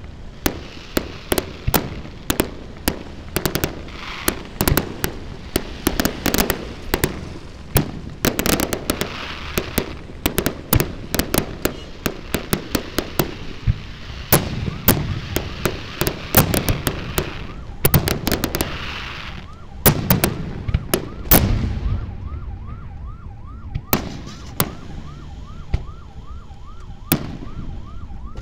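Fireworks show: rapid volleys of aerial shells bursting with crackle, dense for most of the time, then thinning out after about two-thirds of the way through. Once the volleys thin, a siren-like tone rising and falling about twice a second sounds alongside the remaining bursts.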